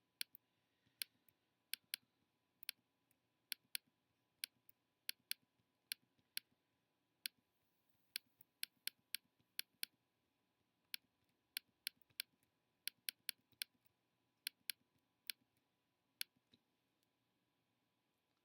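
Faint computer mouse clicking: many sharp, irregular clicks, often in quick pairs, as photo retouching is done with the mouse. The clicks stop about two seconds before the end.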